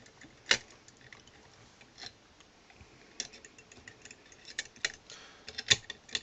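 Sharp metallic clicks and ticks of a lever-lock pick and tension tool going into the keyway of an ERA Invincible 5-lever mortice lock. There is a loud click about half a second in, then scattered clicks that grow denser toward the end.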